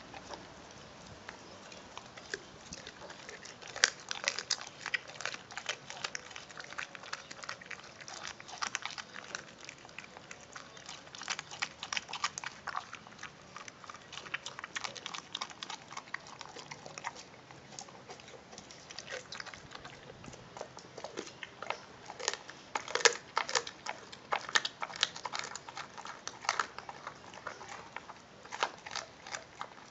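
American Pit Bull Terrier chewing and gnawing a raw turkey drumstick, with irregular sharp crunches and cracks. The loudest come about four seconds in and again around twenty-three seconds.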